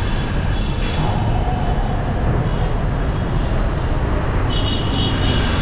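Busy city traffic heard from a moving cycle rickshaw: a steady rumble of road and engine noise. A brief high-pitched tone sounds near the end.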